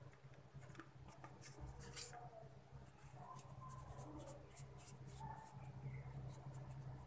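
Faint scratchy rubbing and small clicks as hands pinch off and roll soft dough into balls over a steel plate, over a steady low hum.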